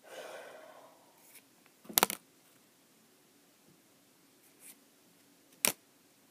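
Pokémon trading cards being handled: a brief rustle at the start, then two sharp clicks, about two seconds and nearly six seconds in.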